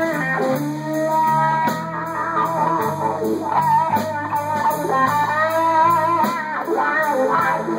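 Live slow blues band: a Stratocaster-style electric guitar through an amp, with steady bass notes and drums underneath. A lead line above them bends and wavers in pitch.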